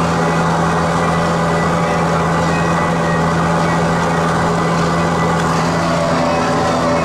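A vehicle engine running steadily at an even pitch, with a strong constant hum.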